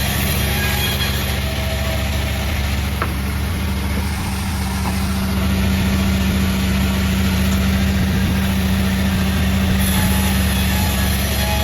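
Sawmill machinery running steadily, a low, even mechanical hum that grows louder about five seconds in.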